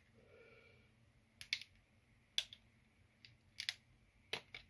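Plastic shell of a Renault hands-free key card clicking and snapping as it is prised apart by hand: a string of sharp clicks, the loudest about two and a half seconds in.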